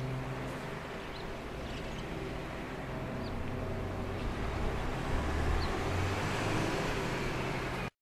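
Steady background road-traffic rumble with a low engine hum, swelling a little past the middle, and a few faint short high chirps.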